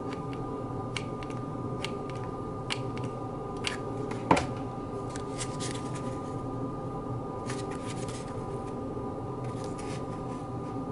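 Hot-glue gun and cardboard model pieces being handled: scattered light clicks and rustles, with one sharper click about four seconds in, over a steady hum.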